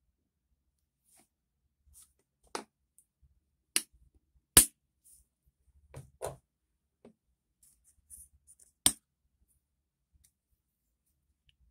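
Slime being pressed and poked with fingers, giving a handful of short, sharp pops and clicks with quiet between them; the loudest comes about four and a half seconds in.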